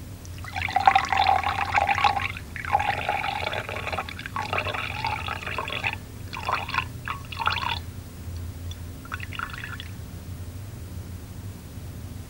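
Liquid being poured in several spells: two long pours, then a few short spurts. A steady low hum lies underneath.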